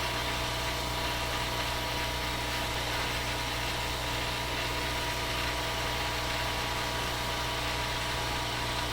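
Steady low hum with a layer of hiss, unchanging throughout: the background noise of a workbench, such as a fan or mains hum.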